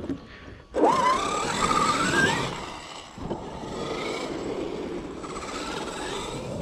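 Arrma XRT RC truck's 12S brushless motor and drivetrain under throttle: a short knock, then a whine starts suddenly about a second in and rises in pitch for a second and a half, drops away briefly, and carries on steadier and quieter to the end.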